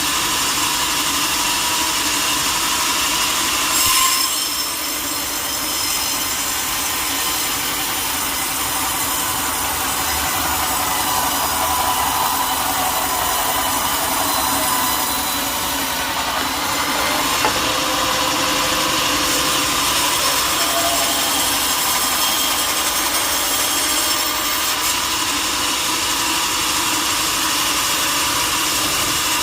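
Sawmill saw cutting through a teak log: a steady, continuous sawing noise with a high whine, briefly louder about four seconds in.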